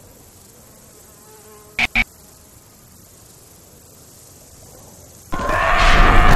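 Faint background hiss broken by two sharp knocks about two seconds in, then a sudden loud buzzing that cuts in about five seconds in and swells: a horror-film sound effect.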